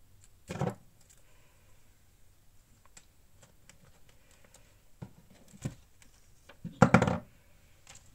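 Handling noises from a thick paper journal on a wooden table: scattered light taps and clicks, a knock about half a second in, and a louder cluster of thumps near seven seconds as the journal is laid open.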